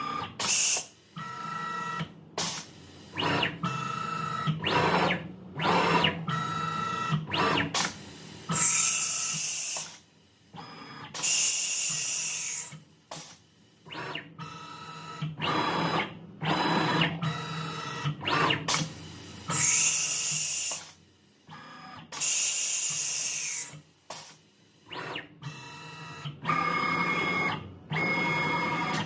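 A DIY CNC router running an automatic tool change: the closed-loop stepper axes whine in short moves that change pitch from one to the next, and the HSD ES950 pneumatic spindle lets out loud hissing blasts of compressed air, about four times, as it releases and clamps tool holders. The recording is sped up one and a half times, so everything sounds higher and faster.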